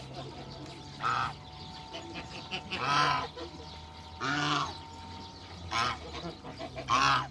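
African geese honking: about five loud calls, one every second or two, each lasting under half a second.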